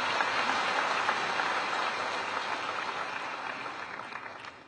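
Audience applauding, many hands clapping together, tapering off near the end.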